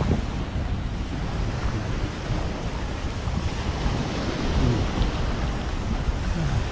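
Steady rush of ocean surf on a beach, with wind buffeting the camera microphone in a continuous low rumble.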